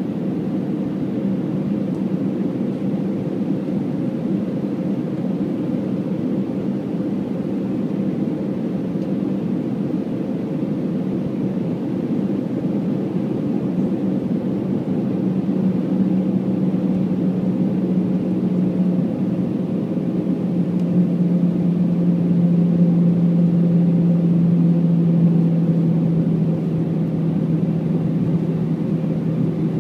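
Steady cabin roar of an Airbus A319-114 with CFM56 turbofans, heard from a window seat beside the wing during descent. Under the roar sits a low engine hum that grows stronger about halfway through and drops slightly in pitch, as the whole sound swells a little for several seconds.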